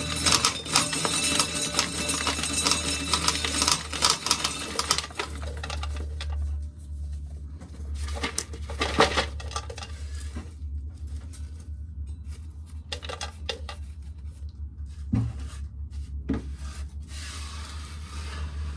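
Dried field corn being shelled off the cob, hard kernels clicking and rattling down into a tub: a dense run of clicks for the first five seconds or so, then sparser clicks and short clusters. A low steady hum runs underneath.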